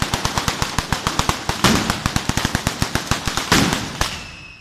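Italian 'batteria' ground fireworks: a long chain of firecrackers going off in rapid succession, about a dozen sharp bangs a second, with heavier reports about one and a half and three and a half seconds in. Near the end the bangs die away and a high whistle comes in.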